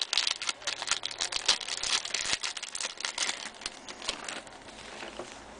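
Plastic wrapper of a trading-card pack crinkling and tearing as it is opened by hand, with cards rustling. The crackly rustling is densest over the first three seconds or so and thins out near the end.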